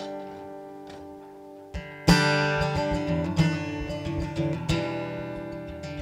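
Solo acoustic guitar playing the intro of a song. Chords are strummed and left to ring, with a strong strum about two seconds in and further strums after it.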